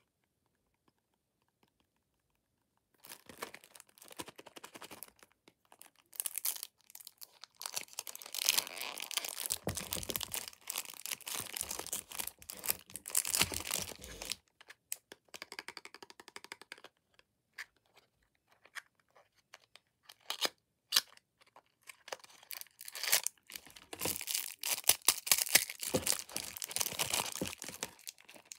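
Clear plastic film being torn and crinkled off a small cardboard blind box, in irregular bursts of crackling and tearing that begin about three seconds in.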